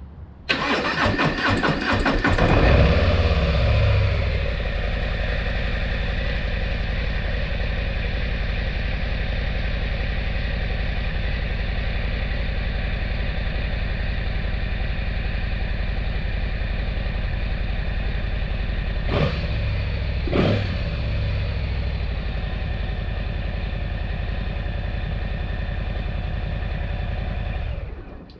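2022 Harley-Davidson Low Rider S's Milwaukee-Eight 117 V-twin, breathing through a newly fitted SP Concepts Big Bore 4.5 exhaust, cranks on the starter and catches about half a second in. It runs higher for a few seconds, then settles to a steady idle. Two brief throttle blips come about two-thirds through, and the engine shuts off just before the end.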